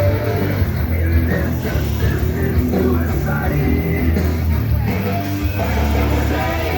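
Loud rock music with a heavy, steady bass.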